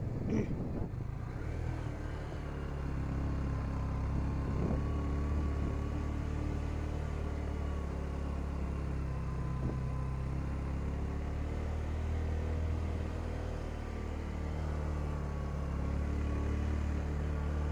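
Engine of a moving vehicle running steadily under way, a low hum whose pitch shifts slightly up and down as it travels.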